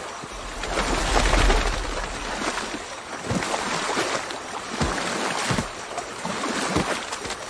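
Film sound effects of a river being waded: a steady rush of water with sloshing as elephants move through it. A low rumble runs through the first two seconds, and a few soft heavy thuds come in the second half.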